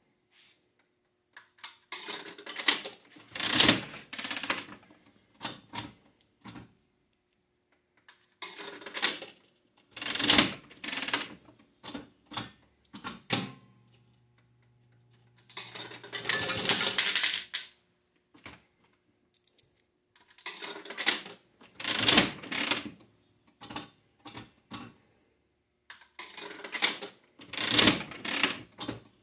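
Bally electromechanical slot machine played several times over: each handle pull sets off a burst of mechanical clicking and clunking as the reels spin and stop. About halfway through, a motor hum comes in under a longer clatter of coins, which sounds like a payout into the tray.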